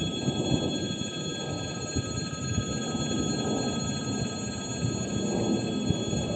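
Low rumble of an approaching suburban electric train, with a steady high drone of several held tones over it.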